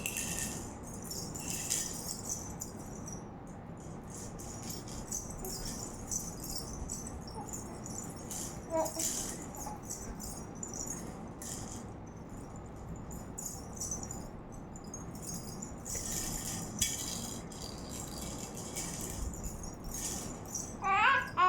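A baby's rattle toy shaken in on-and-off rattling bursts. Near the end a baby's voice briefly rises and falls in pitch.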